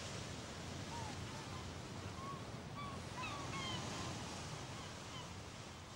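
Birds calling outdoors: a scatter of short squawking calls, most of them in a cluster around the middle, over a steady rushing background like surf or wind.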